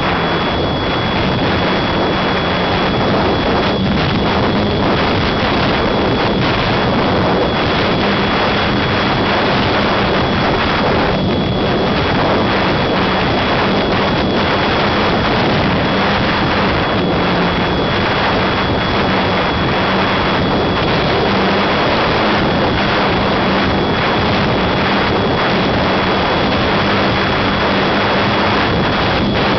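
Wind rushing steadily over a flying RC model plane's onboard camera microphone, with the low hum of its motor-driven propeller and a thin, steady high-pitched whine underneath.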